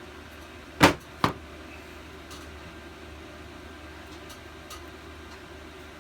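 Two sharp knocks about half a second apart, a second in, the first the louder, over a steady low background hum.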